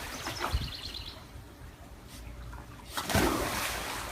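Pool water splashing and sloshing, louder about three seconds in, with a faint, rapid, high chirping in the first second.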